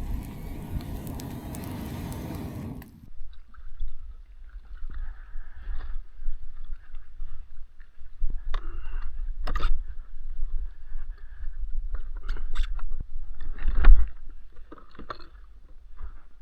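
Kayak being paddled: irregular splashes and knocks of the paddle against the water and hull over a low rumble of wind on the microphone, the loudest splash about 14 seconds in. It opens with a short stretch of rushing noise that cuts off suddenly about three seconds in.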